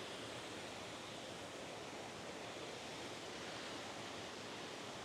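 Mountain river rushing over rocks: a steady, even rush of water, really loud.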